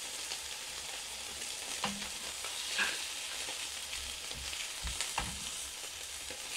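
Thick slices of marbled beef sizzling in a hot frying pan, with a steady hiss and a few light clicks as metal tongs turn the pieces.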